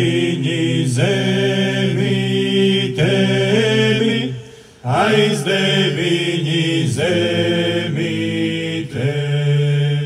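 Male folk vocal ensemble chanting over a held low drone, amplified through a PA; two long sung phrases with a short break for breath about four and a half seconds in.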